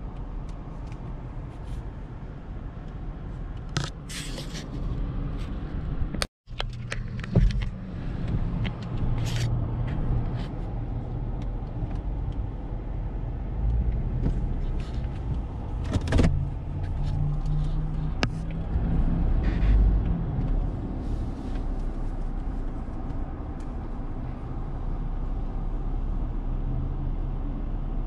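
A car's engine idling and creeping slowly forward, heard from inside the cabin as a steady low rumble with scattered clicks and knocks. The sound drops out completely for a moment about six seconds in.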